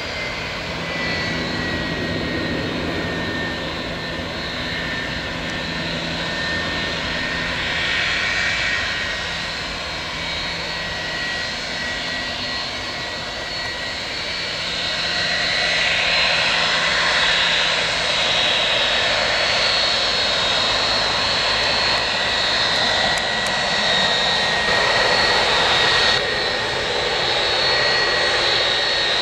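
Boeing 757's twin jet engines running as it taxis on the runway: a steady high whine over a broad rushing noise, growing somewhat louder about halfway through.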